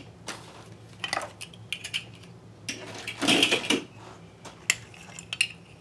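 Metal binder clips being squeezed open and pulled off the edge of a book, a series of separate metallic clicks and clinks. The biggest clatter comes about three seconds in.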